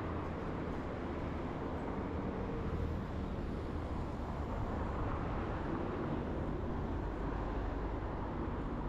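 Steady city traffic and road noise heard from a moving bicycle, a constant low rumble with no single event standing out.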